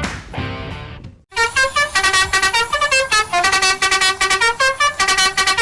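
Background music: a held chord fades out over the first second, then after a brief gap a quick melody of short plucked notes begins.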